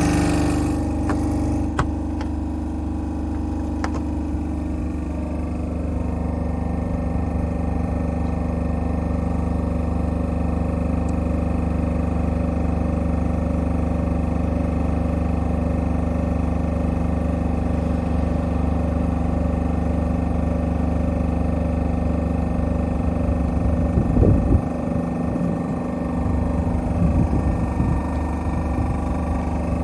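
KAESER oil-free piston compressor running: a steady mechanical drone with a fine, rapid pulsing from the pistons. A brief irregular rise in the sound comes about 24 seconds in.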